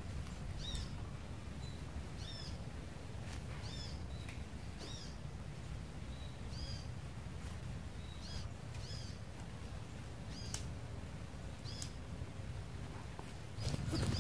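A bird calling with short, high chirps, repeated every second or so at uneven intervals, over a steady low outdoor background. Near the end, rustling of a backpack being handled comes in.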